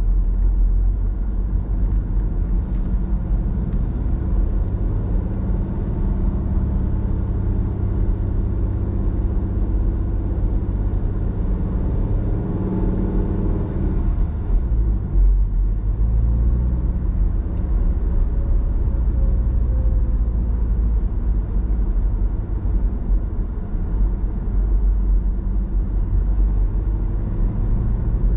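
Steady low rumble of a car driving, heard from inside the cabin: engine and tyre noise, with the engine note shifting in pitch about halfway through.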